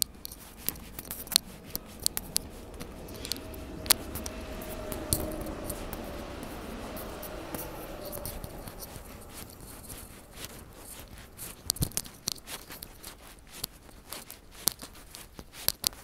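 An electric train passing along the track: its rumble and a steady hum swell from a few seconds in and fade away before the last third. Sharp, close clicks and scuffs run throughout and make the loudest peaks.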